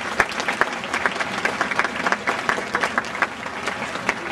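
Crowd applauding with steady clapping.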